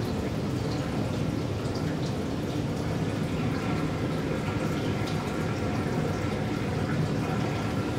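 Liquid film fixer running in a steady stream from a dispenser spigot into a tilted plastic film developing tank as the tank fills.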